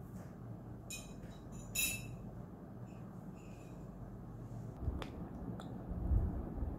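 Faint steady room hum with a few soft clicks and rustles. Near the end, soft tapping on a laptop keyboard begins.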